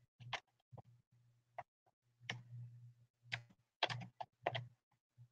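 Faint, irregular keystrokes on a computer keyboard as a password is typed, single clicks and quick pairs with short pauses between.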